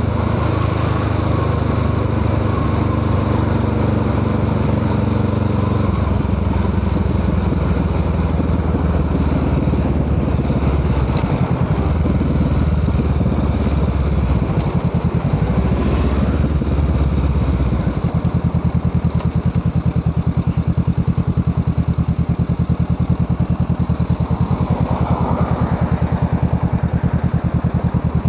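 Honda Rebel 500's parallel-twin engine running through an aftermarket Musarri exhaust muffler. It holds a steady note at first, changes pitch with a few brief dips from about six seconds in, and settles into a slow, even pulsing beat for the last ten seconds.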